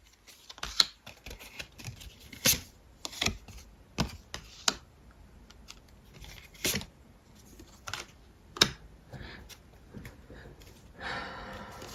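Tarot cards being handled and laid out on a table: irregular soft clicks and taps, a dozen or so spread unevenly.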